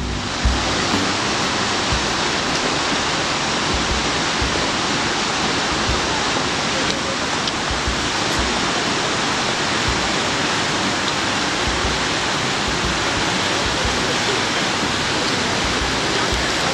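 Steady rush of flowing water, an even noise holding level throughout.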